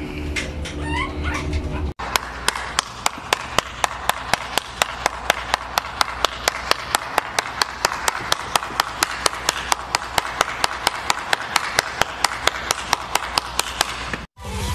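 Steady hand clapping, about four claps a second, over a haze of applause, beginning abruptly about two seconds in and stopping suddenly near the end. Before it comes a short rising call.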